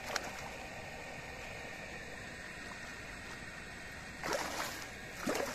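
Hooked fish thrashing at the surface of shallow water: a sharp splash just after the start, then two more splashes about a second apart near the end.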